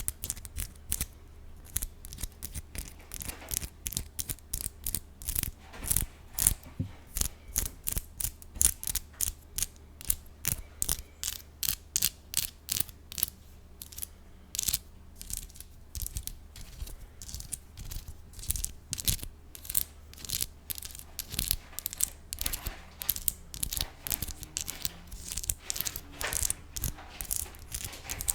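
Long acrylic nails tapping and scratching close to a bare condenser microphone: a quick, irregular run of sharp clicks, several a second.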